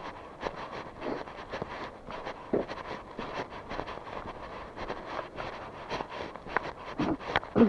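Footsteps of a person walking at an even pace, about two steps a second, over a steady background hiss; two heavier steps near the end.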